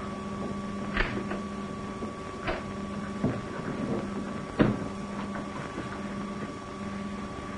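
Footsteps knocking on a submarine's steel deck, a few sharp steps at uneven gaps with the loudest about four and a half seconds in, over a steady machinery hum.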